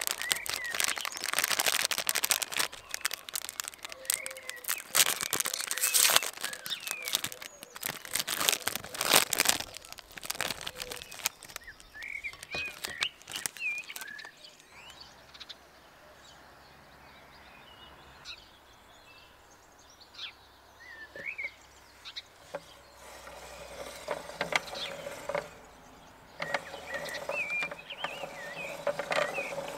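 Crisp crinkling and rustling of plastic ice cream bar wrappers being handled and opened, loudest in the first third. Small birds chirp now and then in the quieter stretches.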